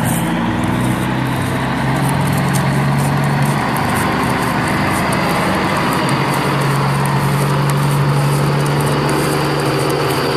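A truck engine running steadily with a low drone that shifts a little in pitch about halfway through, with a fine crackle over it.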